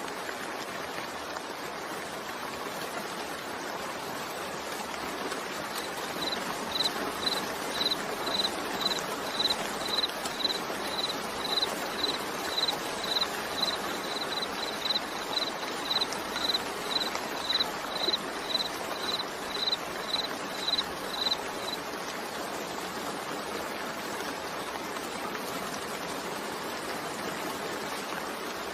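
Steady, continuous rain mixed with white noise. From about six seconds in until about three-quarters of the way through, a short, high, pitched pip repeats about twice a second over the rain, then stops.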